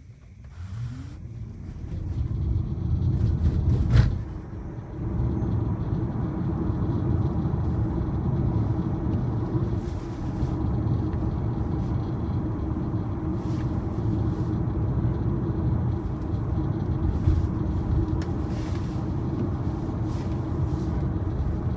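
Road and tyre noise inside a Tesla Model Y's cabin as the electric car picks up speed, with a brief rising whine near the start and a single sharp knock about four seconds in, then settling into a steady low drone at cruising speed.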